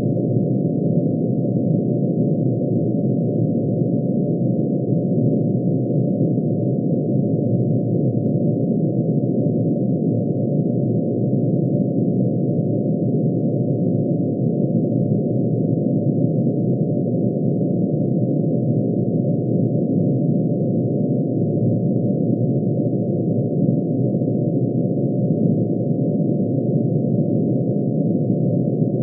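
Synthesized tone of mercury's atomic emission spectrum: many sine waves, one for each spectral line, pitch-shifted into hearing range and summed. It makes a steady, dense, unchanging drone, low in pitch, with no breaks.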